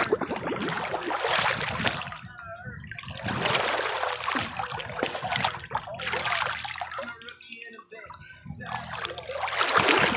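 Pool water splashing and sloshing right at the microphone in several surges a second or two long, with trickling water between them.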